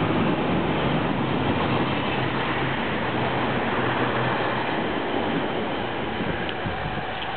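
Red diesel railcar train passing close by at speed: engine hum and wheel-on-rail noise, loud at first and gradually fading as the train moves away.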